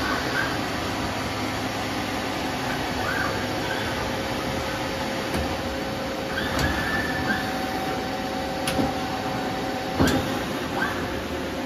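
Doosan Z290SMY multi-axis CNC turn-mill running through its axis moves: a steady machine hum with short whines as the turrets travel, and a higher tone held for a few seconds near the middle. A sharp clunk comes about ten seconds in.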